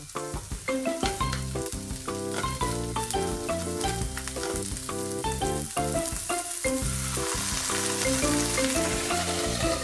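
Asparagus sizzling in sesame oil in a nonstick frying pan, stirred with chopsticks; the sizzle grows louder and hissier after about seven seconds, when a little water is poured into the hot pan. Background music with a stepping melody of short notes plays throughout.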